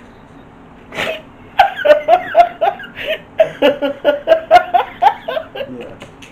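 A woman laughing hard: a short outburst about a second in, then a long run of rapid, high-pitched ha-ha bursts, about four a second, tailing off near the end.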